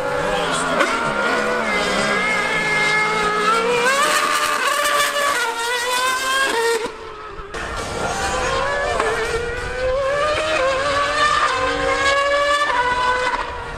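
A Formula One car's V8 and a Yamaha R1M superbike's engine revving high as they accelerate and race. The pitch climbs and drops again with each gear change, and the sound dips briefly about seven seconds in.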